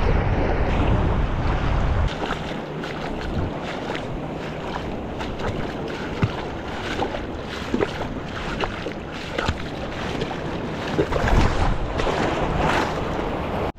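Sea waves washing and splashing, with wind buffeting the microphone. The low wind rumble is heaviest for the first two seconds, then scattered splashes and knocks come through, busiest near the end.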